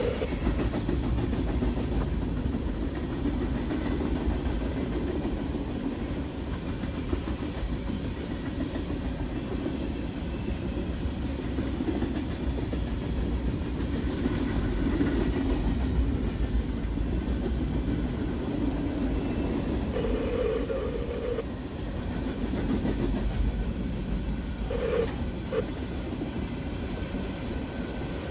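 Freight cars of an empty CSX trash train rolling past on the rails, a steady low rumble of wheels on track. A few brief higher tones come and go about twenty and twenty-five seconds in.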